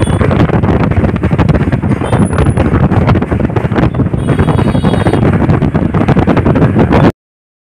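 Loud, dense rumble of traffic crossing the bridge, mixed with wind buffeting the microphone. Faint high whines come in briefly twice, and the sound cuts off abruptly near the end.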